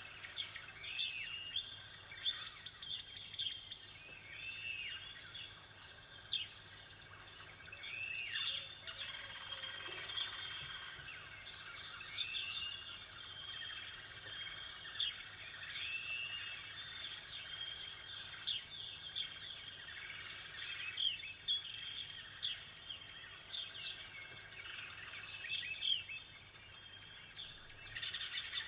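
Songbirds chirping and singing, many short high notes rising and falling and overlapping in a busy chorus.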